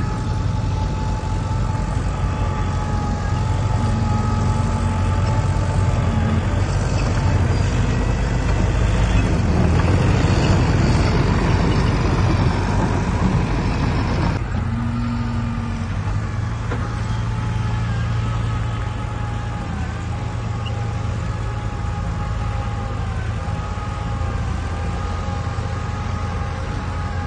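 Heavy diesel earthmoving machinery running steadily, with a low rumble and a steady whine over it. It grows louder and rougher from about eight seconds in, then drops back suddenly around halfway.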